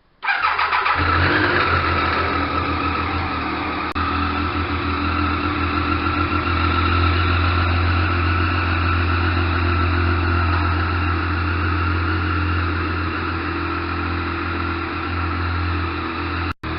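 2014 Triumph Daytona 675's 675 cc inline three-cylinder engine, on its stock exhaust, running at a steady idle. It cuts in abruptly just after the start, and the sound drops out briefly near the end.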